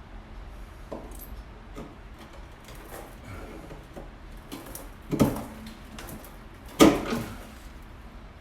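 Light knocks and clunks as an exhaust pipe is pushed and twisted to force its rubber hanger onto a mounting pin, with two louder knocks about five and seven seconds in.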